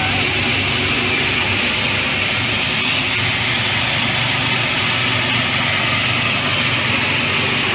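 Aluminium corner-key cutting machine running idle: a steady whirring mechanical noise with a low hum and a thin high whine, unchanging throughout. One faint tick comes about 3 seconds in.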